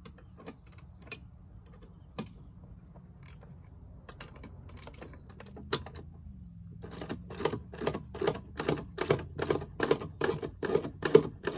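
Ratchet wrench clicking as the bolts of a truck camper's rear jack bracket are tightened: a few scattered clicks at first, then from about seven seconds in a steady run of about four or five clicks a second.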